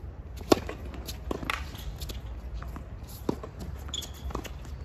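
Tennis rally on a hard court: a sharp racket strike on the ball about half a second in, then further ball bounces, racket hits and footsteps.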